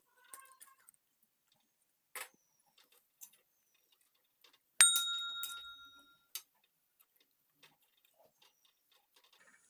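A single sharp metallic clink about five seconds in, ringing with a bell-like tone that fades over about a second and a half, among a few faint clicks and taps.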